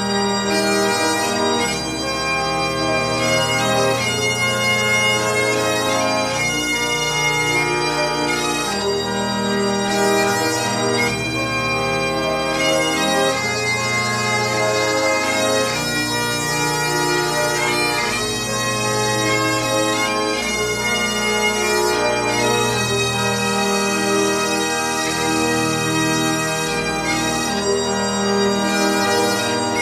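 Bagpipe music playing as a soundtrack: a sustained piped melody over low held notes that shift every few seconds.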